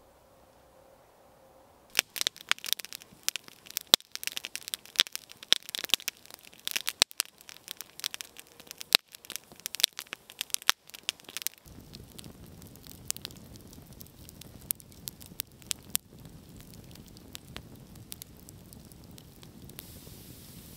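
Sharp crackling and snapping that starts suddenly about two seconds in and comes thick and fast for about ten seconds. It then turns to scattered pops over a steady low rushing noise.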